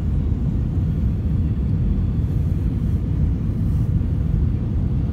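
Airliner cabin noise in flight: the steady, low rumble of the engines and air rushing past the fuselage, heard from a window seat.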